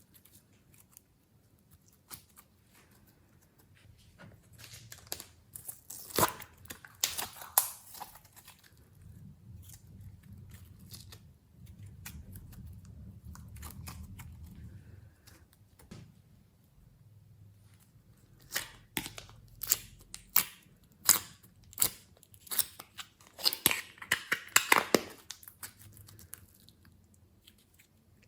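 Glossy slime being handled and squeezed by hand, giving bursts of sharp sticky clicks and pops with soft squishing between them.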